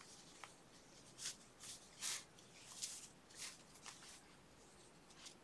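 Faint rustling of yarn and crocheted fabric: a string of soft brushing sounds, about two a second, as a crocheted chain is drawn in and out through the stitches.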